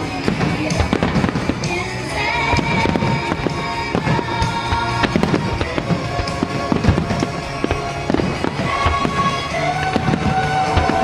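Aerial fireworks display: many shell bursts in quick succession, with music playing alongside.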